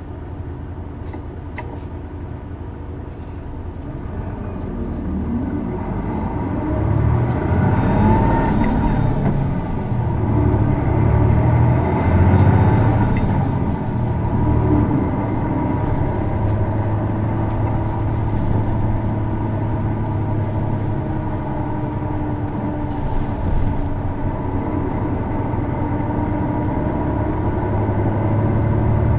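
Isuzu Erga PKG-LV234L2 city bus heard from inside the cabin while under way: the engine builds up over several seconds, then runs on steadily with small swells. This bus's engine has a characteristic abnormal noise, a trait also found in other PKG-series Ergas.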